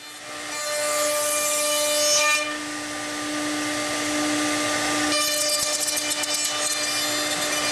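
High-speed 5-horsepower router spindle on a CNC stair router, running with a steady whine while its bit cuts into a wooden stair stringer. The cutting noise eases about two and a half seconds in and comes back louder about five seconds in as the bit bites deeper into the wood.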